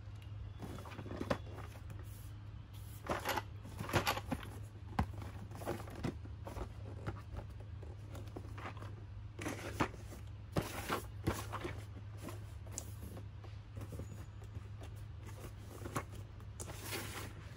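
Closed cardboard box being handled and turned over on a wooden floor: irregular scrapes, rustles and knocks of cardboard against the boards and the hands. A steady low hum runs underneath.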